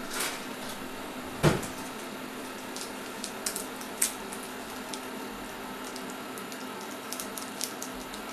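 EveryCook automated cooking machine at work with its pot at the boil: a steady low hum with scattered small clicks and ticks, and one louder knock about one and a half seconds in.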